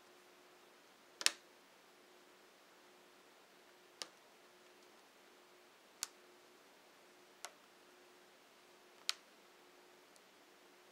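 Plastic screen bezel of an Acer Aspire One laptop being pressed back onto the lid, its clips snapping into place in five sharp clicks spaced one to three seconds apart.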